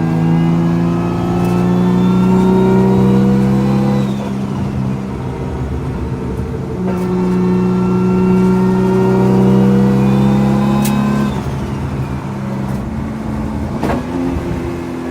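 Nissan R32 GT-R's RB26 twin-turbo straight-six, tuned to about 900 hp, pulling up through the revs twice. Each pull rises for about four seconds and then drops away. A sharp click comes near the end.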